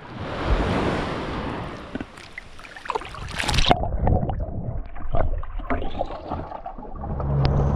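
Water sloshing and splashing around a swimmer at the surface, turning dull and muffled underwater about three and a half seconds in, with scattered knocks. Near the end an outboard motor's steady low hum comes in.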